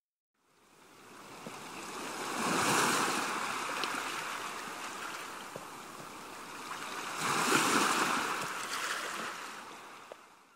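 Ocean waves washing in, a rushing surge that swells twice, about five seconds apart, and ebbs away.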